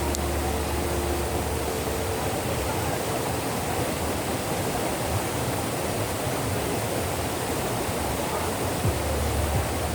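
Waterfall water rushing steadily over rock, an even roar of falling water. A low rumble under it comes and goes, strong at the start and again near the end.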